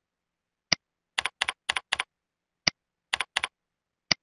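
Computer keyboard typing in two short runs of keystrokes, each stroke a quick double click. Single sharper clicks fall before, between and after the runs, with silence between the sounds.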